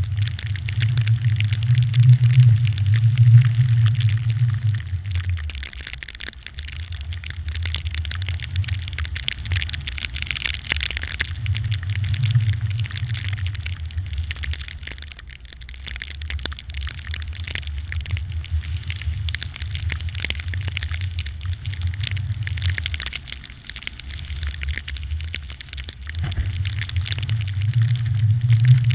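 Wind rumbling on a pole-held GoPro Hero 2's microphone over the hiss of a snowboard gliding through deep powder. The low rumble swells and eases every few seconds.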